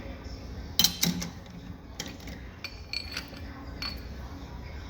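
Steel tools and lathe parts clinking and knocking together as they are handled. The loudest pair of clinks come about a second in, followed by several lighter scattered clinks.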